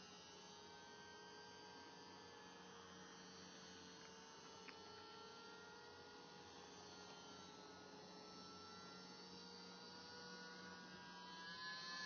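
Faint steady whine of a small RC model seaplane's motor and propeller in flight, its pitch drifting slightly. It grows louder and its pitch bends near the end as the plane comes closer.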